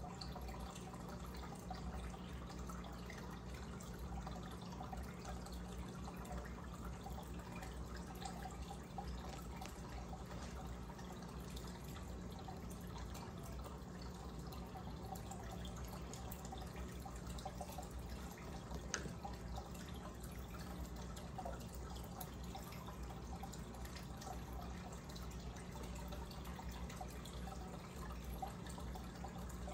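Aquarium air stone bubbling steadily, a fine stream of bubbles rising and popping at the water's surface, over a steady low hum. One sharp click about two-thirds of the way through.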